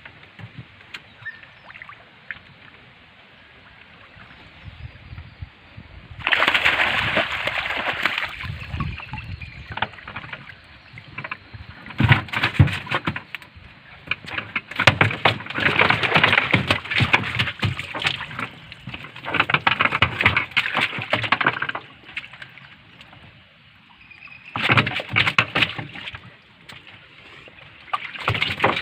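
Water splashing and sloshing in several long bursts of a few seconds each, with quieter gaps between them.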